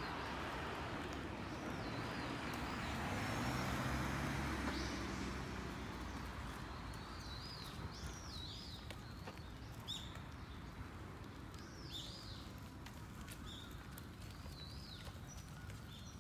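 A vehicle passes on the road, its rumble swelling to a peak about four seconds in and then fading. After it, songbirds sing short, repeated rising-and-falling chirping phrases over a faint outdoor background.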